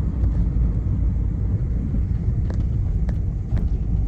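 Car driving: a steady low rumble of engine and road noise, with three faint light clicks in the second half.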